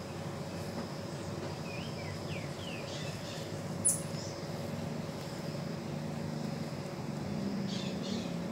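Forest background: a steady low hum with a few faint, short falling chirps about two seconds in and one short, sharp high peep about four seconds in.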